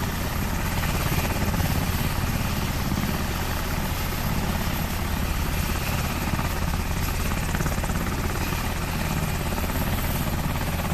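UH-60 Black Hawk helicopter running on the ground with its rotor turning: a steady, even rotor chop over its twin turboshaft engines, with a thin steady high whine on top.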